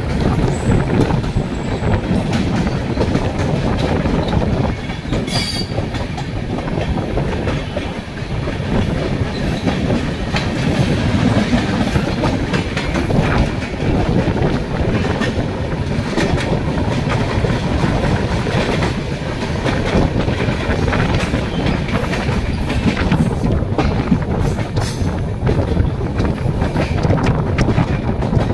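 Two passenger trains crossing on adjacent tracks, heard from the doorway of one of them. There is a steady, loud wheel rumble and rail-joint clickety-clack, with the other train's coaches rushing past close by.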